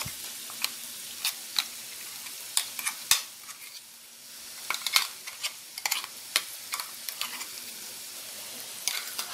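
Boiled Chinese potatoes frying in coconut oil in a pan, sizzling steadily. Over the sizzle come irregular sharp clicks and scrapes of a spoon against metal as a thick shallot-and-red-chilli paste is scraped out of a steel bowl into the pan.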